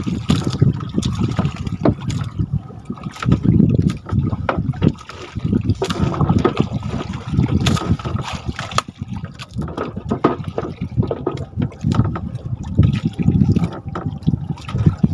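Water sloshing and splashing around a small fishing boat, in uneven surges every second or two, with scattered knocks.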